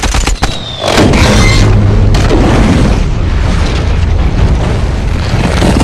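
A few quick gunshots, then about a second in a large explosion goes off, followed by a long, deep rumble.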